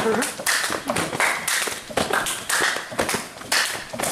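Hands clapping in a fast, steady rhythm, about two to three claps a second, during a quick drill, with a voice briefly at the start.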